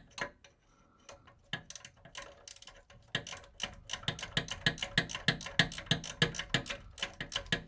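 Ratcheting spanner clicking as the nut on a cut ball joint bolt is wound off: a few scattered clicks, then a fast, even run of clicks from about three seconds in.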